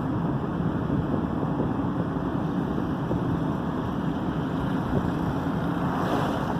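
Steady car cabin noise while driving: engine hum and road noise from the tyres.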